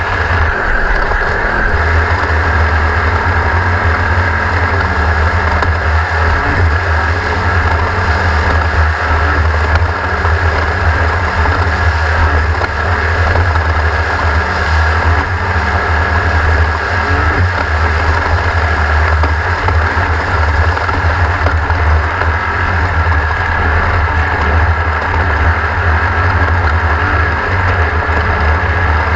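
An engine running steadily at constant speed: a loud low drone with a steady higher whine above it, no revving up or down.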